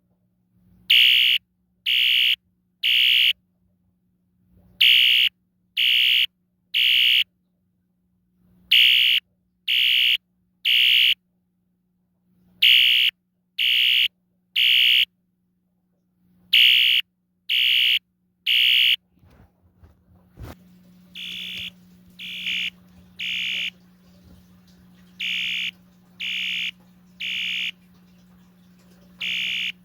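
Wheelock ES-DL1-WS-24DC electronic fire alarm horn sounding the temporal-3 code: three short, high, piercing beeps, then a pause, repeating every four seconds. About two-thirds of the way through, after a click, the pattern carries on more quietly over more background noise. A faint low hum runs underneath throughout.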